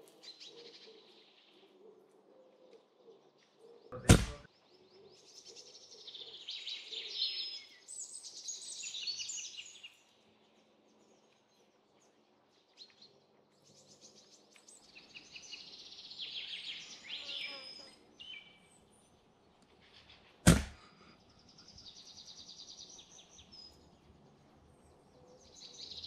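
Two sharp air rifle shots about sixteen seconds apart, with small birds chirping and twittering between them.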